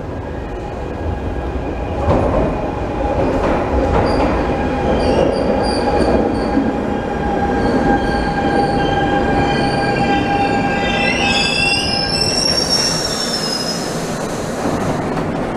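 Barcelona Metro line 3 train running into an underground platform, with a loud rumble and a steady high whine. The wheels and brakes squeal in sliding pitches as it slows to a stop, about three-quarters of the way through.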